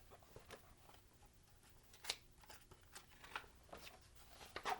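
Faint, scattered paper rustles and light clicks of a picture book's pages being handled and turned, the loudest about two seconds in.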